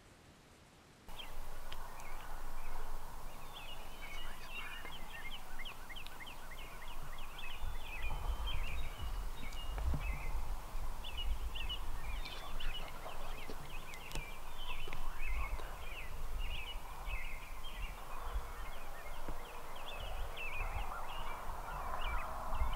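Chorus of songbirds, many short chirps and trills overlapping, starting about a second in over a low rumble.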